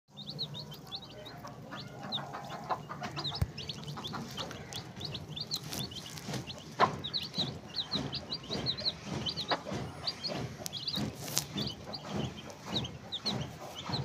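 Chickens: chicks peeping with short high calls throughout, over lower clucking and a few sharp knocks, the loudest about seven seconds in.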